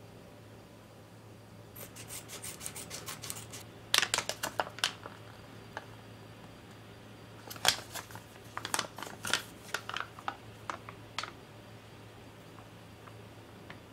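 Foil retort curry pouch crinkling and crackling in the hands as it is opened and squeezed: a quick run of small crackles, then louder crinkles in two bursts.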